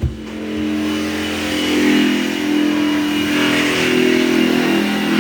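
Electric jigsaw running and cutting, its motor giving a steady whine over the rasp of the blade, getting louder over the first two seconds after a short knock at the very start.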